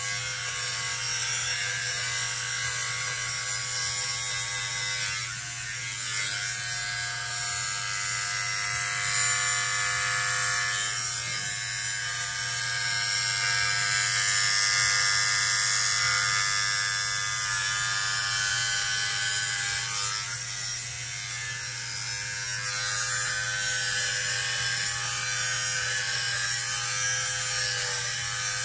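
Electric hair clippers running continuously, buzzing through very short hair on the scalp. The steady motor hum swells and dips as the blades are pushed across the head, loudest about halfway through.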